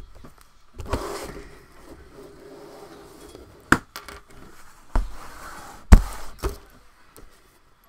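Cardboard boxes being shifted and handled: rustling, a sharp click, then a few thumps, the loudest about six seconds in.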